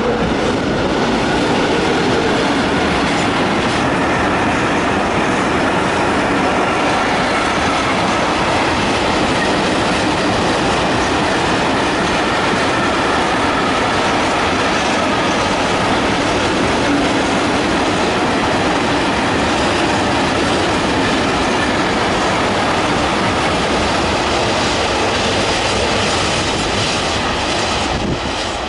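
Train running past close by along the platform: a loud, steady rumble of wheels on rail with clickety-clack over the rail joints, easing off near the end.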